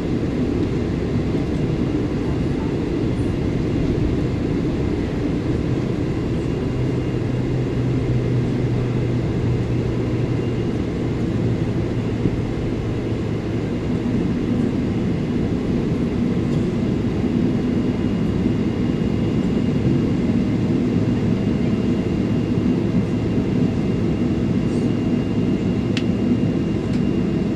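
Cabin noise of a Boeing 777-300ER taxiing, its GE90-115B engines at low thrust: a steady low rumble with faint hums that shift in pitch partway through. A single sharp click sounds near the end.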